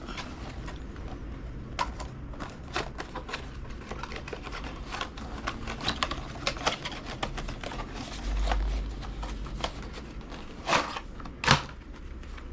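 Hands opening the packaging of a Continental Gatorskin bicycle tyre: irregular clicks, crinkles and rustling, with a low bump a little past the middle and two louder bursts of rustling near the end.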